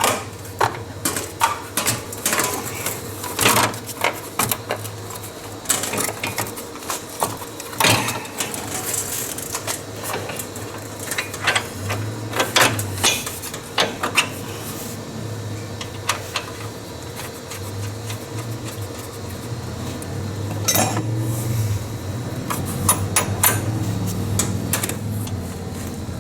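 Hand tools and metal parts clinking and knocking irregularly as a shock absorber is fitted and bolted back on, with a steady low hum underneath.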